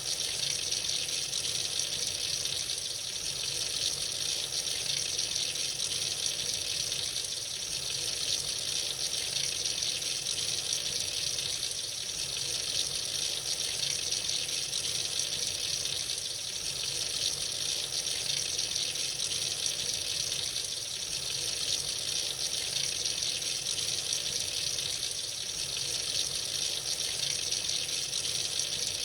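Tap water running steadily into a sink, a continuous hissing splash.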